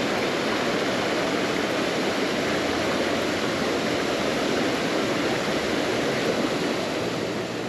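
A small brook pouring over a low concrete weir into a churning pool: a steady rush of falling water.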